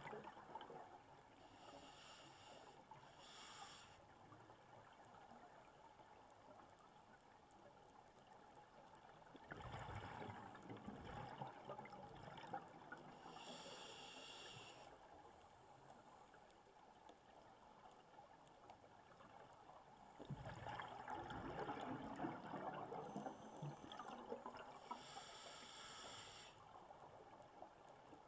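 Scuba diver breathing through a regulator underwater: three short hissing inhales, each followed some seconds later by a longer gurgling rush of exhaled bubbles, the breaths slow and spaced out.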